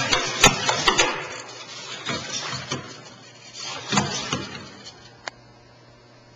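A quick run of sharp clicks and knocks in about the first second, then a few short scuffing rustles and a single sharp tick, mechanical handling or movement noise.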